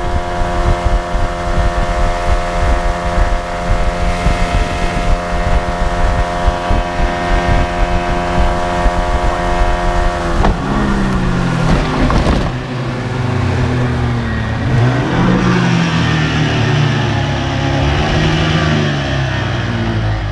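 A boat's outboard motor running at a steady high speed. About ten seconds in the engine note drops, then rises and falls unevenly as the revs change, with a short burst of noise about twelve seconds in. Rushing wind and water noise run underneath.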